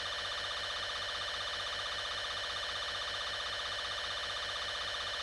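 A steady electronic drone made of many stacked tones, with a fast, even flutter.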